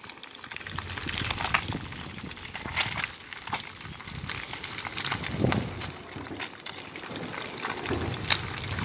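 Hot oil sizzling around two whole fish frying in a pan: a steady hiss with irregular sharp crackles and pops.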